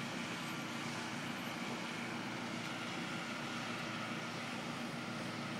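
Power washer running, a steady drone with an even hiss over it that does not change.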